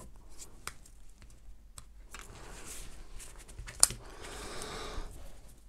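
Hands handling small objects on a desk: soft rubbing and sliding with a few light clicks, and one sharper click about four seconds in.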